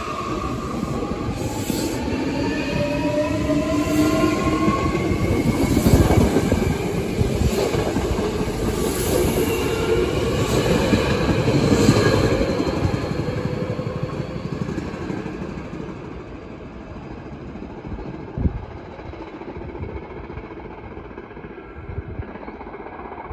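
Hankyu 8300 series electric train accelerating away, its Toyo Denki VVVF inverter and traction motors giving a whine that climbs in pitch as several tones, over rhythmic wheel clatter at rail joints. The sound fades from about halfway through as the train recedes. A single knock comes near the end.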